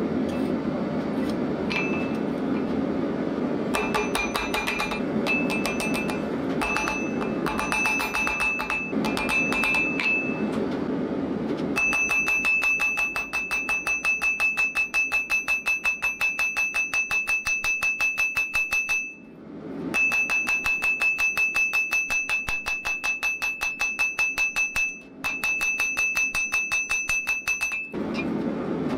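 Hand hammer striking red-hot steel bar on a steel anvil, the anvil ringing with a high, bell-like tone on each blow. In the first dozen seconds short groups of blows sound over a steady low rushing noise. After that comes a long, rapid, even run of blows, broken by two brief pauses.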